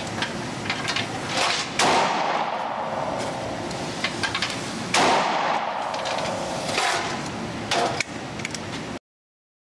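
Standard Manufacturing S-333 Thunderstruck .22 WMR double-barrel revolver firing twice, about three seconds apart. Each trigger pull fires both barrels at once, giving a sharp, echoing crack. Fainter bangs and clicks come between the shots over a steady background noise, and the sound cuts off suddenly near the end.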